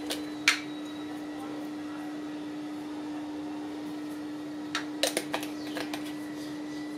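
A steady hum from a running appliance or motor holds one low pitch throughout. Over it come a few faint light taps, once about half a second in and a cluster around five seconds in, as dried herbs are pinched and dropped into a glass bowl of mashed potato.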